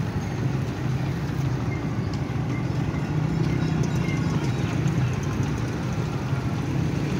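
Steady low rumble of idling engines and street traffic.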